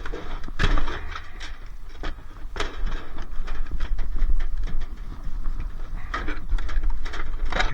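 Repeated, irregular blows knocking the plastic casing off a dishwasher, with plastic cracking and breaking away.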